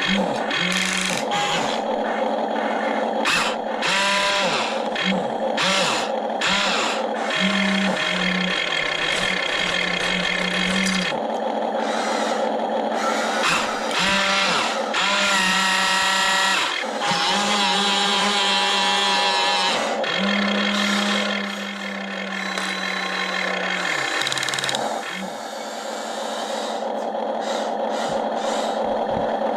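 Small electric motors of a radio-controlled toy excavator whining in short runs that start, stop and shift in pitch, over a steady mechanical hum, with scattered clicks.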